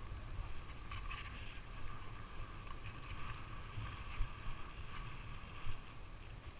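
Skis sliding over packed snow with a steady hiss and scrape, over a low rumble of wind on the microphone.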